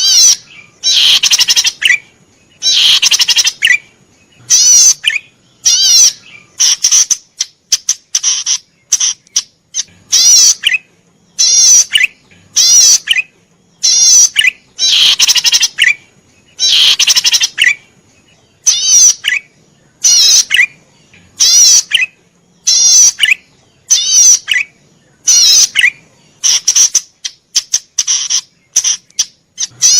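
Cici padi merah, a small cisticola, singing vigorously: loud phrases of rapid, up-and-down trilled notes, each lasting up to about a second and a half, repeated every second or two with short pauses between.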